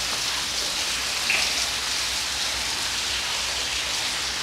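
Steady, even hiss with one faint tap a little over a second in.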